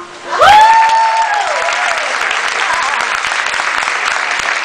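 Audience applauding at the end of a song performance. About half a second in, a high voice holds one note for about a second over the start of the applause, which then carries on as a steady clapping.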